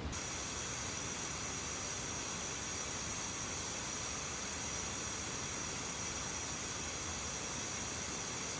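Steady, even hiss with a faint high-pitched band running through it.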